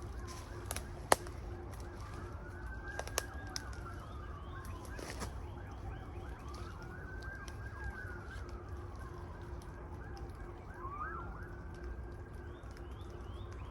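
Emergency-vehicle siren wailing in a slow rise and fall, about three cycles some four and a half seconds apart, over a low steady rumble. There is a single sharp click about a second in.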